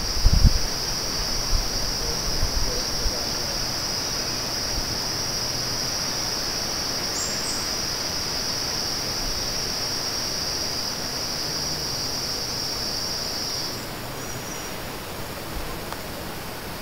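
An insect's continuous high-pitched buzzing trill, steady in pitch, cutting off about fourteen seconds in, over a steady hiss of forest ambience. A few low thumps sound in the first few seconds.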